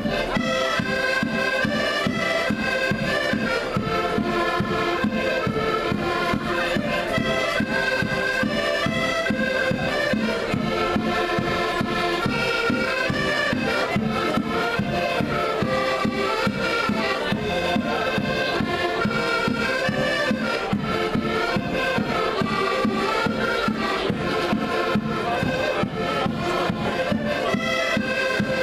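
Several accordions playing a traditional Portuguese folk tune together, with a steady beat in the bass.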